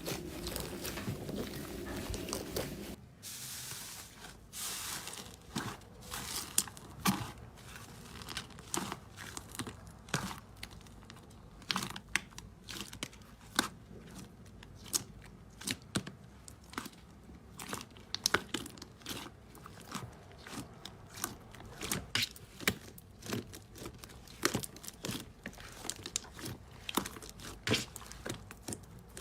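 Slime being squished and poked by hand, a dense run of small wet clicks, pops and crackles. The texture changes about three seconds in to sparser, sharper pops.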